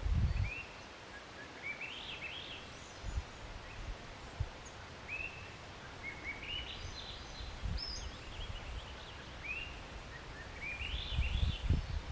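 A songbird singing short phrases of high chirping notes, each a slurred note followed by a quick rising run, repeated every few seconds. Low rumbling on the microphone near the start and louder again near the end.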